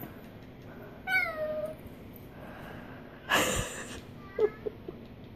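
Small dog whining and yipping at a slipper it is squaring up to: one falling, high-pitched whine about a second in, a short, harsher, louder sound a couple of seconds later, then a few brief low yips.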